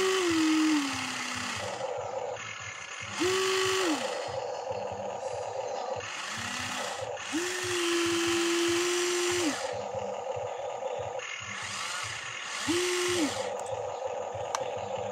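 Electric actuator motors of a Huina 1594 RC excavator whirring in short bursts as the boom, arm and bucket move. Four louder bursts of high whine stand out, the first dropping in pitch as it ends, with a quieter, steady whir between them.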